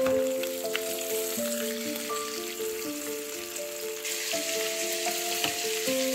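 Whole trout frying in oil in a nonstick pan, a steady sizzle, with soft background music playing a slow melody over it.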